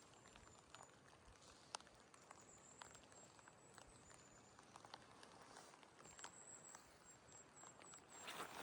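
Near silence with faint scattered ticks and drips, like rain water dripping in the woods. A very faint, very high, thin whistle comes and goes.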